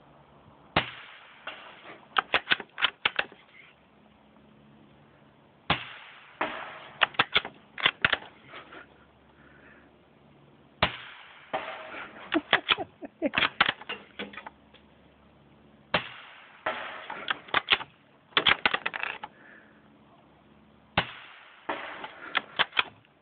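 Bolt-action .22 LR rifle firing CCI Quiet-22 subsonic, reduced-velocity rounds: five shots about five seconds apart, each a short, light crack with a brief ring. After each shot comes a quick run of sharp metallic clicks as the bolt is worked open and closed to chamber the next round.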